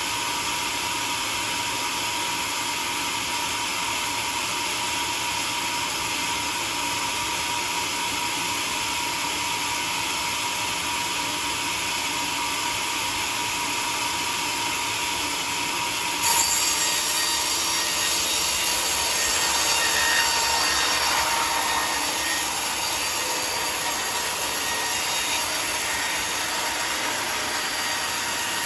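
Homemade sawmill running and sawing timber, a steady mechanical noise. About halfway through, it suddenly gets louder and sharper, then settles back over the next several seconds.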